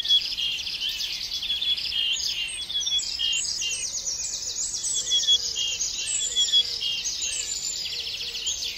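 Several small birds chirping and trilling in dense, overlapping calls, with quick repeated trills and short falling chirps.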